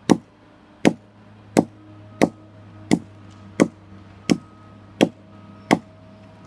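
Axe chopping into a fallen log: nine sharp, evenly spaced strikes, about one every 0.7 seconds, over a faint steady hum.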